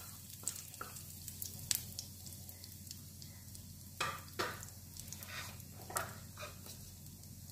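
Cumin seeds frying in hot oil in a stainless steel pan: a steady faint sizzle with scattered crackling pops, the sharpest about four seconds in.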